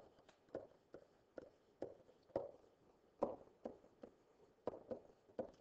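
Faint, irregular taps and short scrapes of a stylus on a writing tablet as words are handwritten, about two strokes a second.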